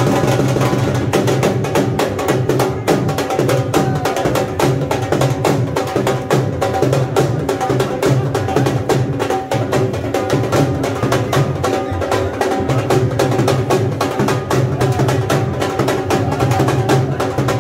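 Dhol drumming with music: fast, dense drum strokes over steady sustained notes.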